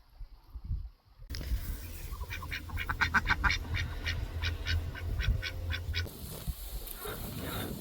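Farmyard fowl calling: a rapid run of short, repeated calls, about four a second, starting about a second in and stopping near six seconds, over a low rumble.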